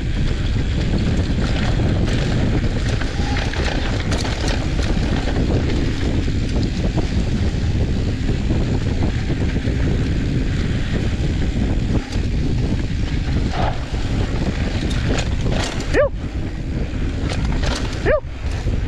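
Wind rushing over an action camera's microphone and knobby mountain-bike tyres rolling over loose, dusty dirt singletrack, a steady loud noise. Two short, higher-pitched sounds that bend in pitch cut through near the end.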